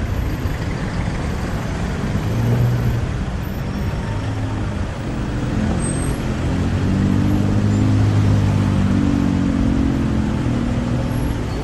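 Busy city street traffic with car and truck engines running close by. A deeper engine hum swells from about halfway through and fades near the end.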